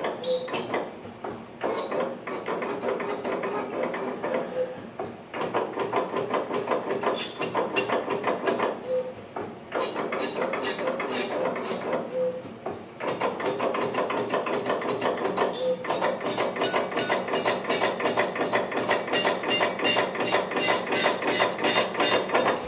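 SDS Easybender S1 steel rule bending machine feeding and bending steel rule: rapid mechanical clicking and knocking in runs of a few seconds, with short pauses between runs.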